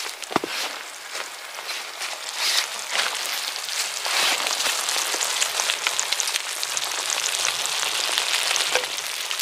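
Thick milk-based gratin sauce simmering and sizzling in a cast-iron skillet on a wood stove, with a dense patter of small pops and crackles that grows louder about two seconds in, as the sauce thickens.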